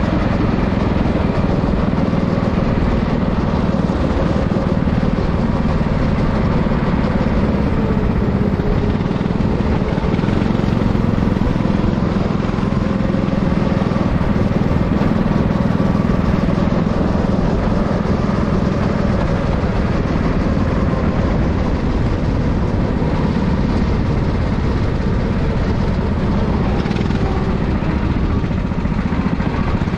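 Racing kart engine running steadily, its pitch and loudness staying nearly even.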